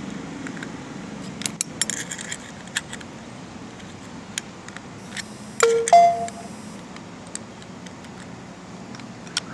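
Flat steel spanner clicking and scraping against the hex oil filler plug of a Ryu RDH 50 jackhammer as the plug is loosened to fill the empty gearbox with oil. About six seconds in comes one louder metallic clink that rings briefly.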